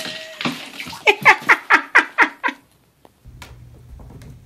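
Cat giving a rapid run of about eight short meows in under two seconds, followed by a faint low hum.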